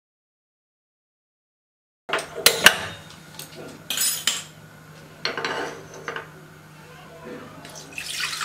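Silence for about two seconds, then metal cookware clinking and knocking in several sharp clatters. Near the end, water pours from a steel bowl into an aluminium pressure cooker.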